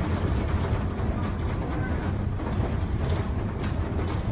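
Steady low rumble of a bus heard from inside the passenger cabin, with a few faint clicks and rattles.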